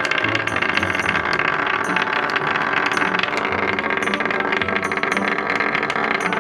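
Small battery-powered vibrating bug toy buzzing and rattling steadily against a wooden tabletop, a dense run of fine clicks.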